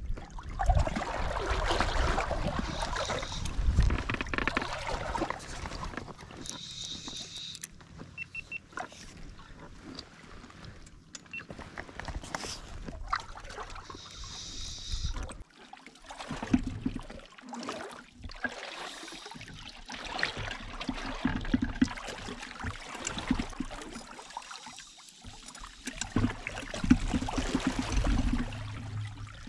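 River water lapping and gurgling against the pontoons of a drifting fishing pontoon boat, with scattered knocks and clicks from handling the fly rod and reel.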